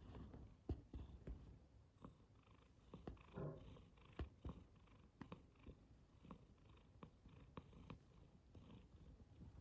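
A domestic cat purring softly while being massaged, with a few short soft knocks from handling.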